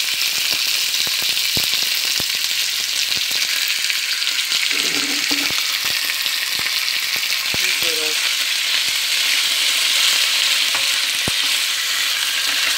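Pieces of raw pork sizzling steadily in hot olive oil in a nonstick frying pan, with scattered sharp pops throughout.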